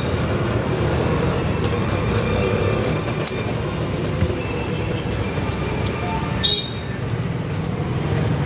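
Steady low rumble of street traffic, with a few sharp clicks and a brief high tone about six and a half seconds in.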